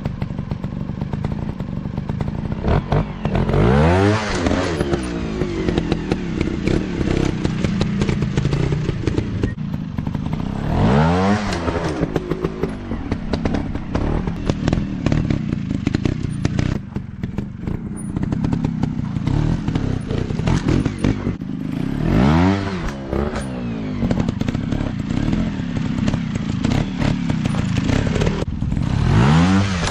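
Dirt bike engines running, revving up and back down four times, with clattering and knocks throughout.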